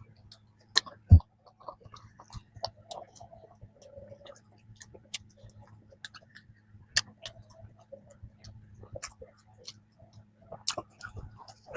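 Close-miked chewing of a flaky strawberry danish: scattered sharp crisp crackles and mouth clicks, with one loud low thump about a second in, over a faint steady hum.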